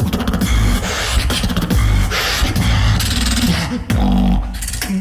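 Solo beatboxing: deep, heavy bass tones under snare-like hisses and rapid clicking, in a dense beat that thins out near the end.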